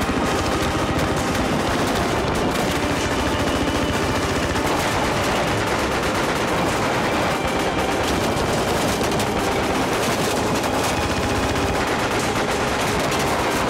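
Heavy, continuous gunfire of a battle, many shots overlapping without a break.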